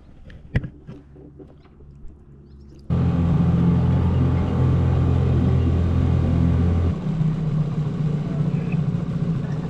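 A few faint clicks, then from about three seconds in a boat motor running steadily under way. Its tone shifts about seven seconds in, when the deepest part of the hum drops away.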